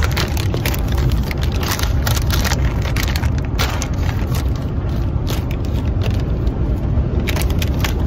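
Steady low rumble of road noise inside a moving car's cabin, overlaid by repeated crinkling and crackling of a plastic snack bag being handled and torn open.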